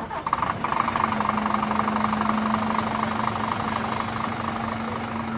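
Vintage FNM truck's diesel engine coming up loud right at the start and then running hard with a rapid, rough firing beat and a deep rumble.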